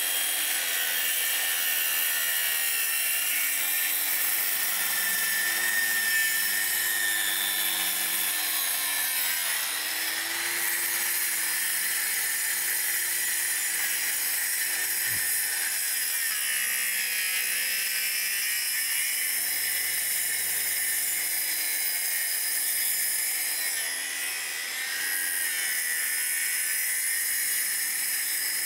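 Corded Makita 5-1/2-inch trim saw running and cutting slowly along a curved line through deck boards. Its motor pitch dips and recovers several times as the blade loads up in the cut.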